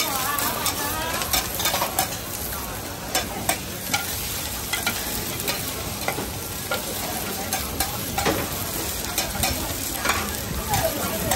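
Taiwanese-style oyster omelette sizzling on a large flat-top griddle, with metal spatulas scraping and clicking against the griddle surface many times as it is worked and turned.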